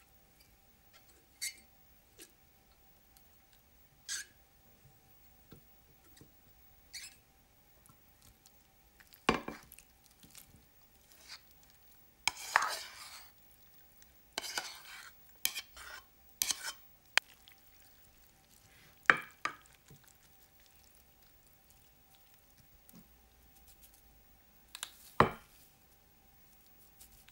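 Irregular clicks and taps with a few short scraping or rustling sounds of small objects being handled, over a faint steady hum.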